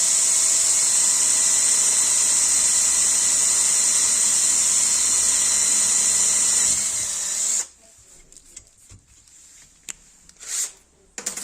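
Electric power drill running at steady speed with a high hiss, stopping abruptly about three-quarters of the way through, followed by a few light clicks and knocks.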